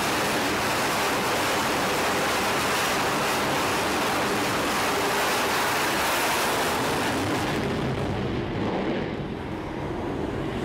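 F/A-18 fighter jet's twin engines at full afterburner during a carrier launch: a loud, steady rushing noise. It fades near the end, the highest part dropping away first, as the jet leaves the deck.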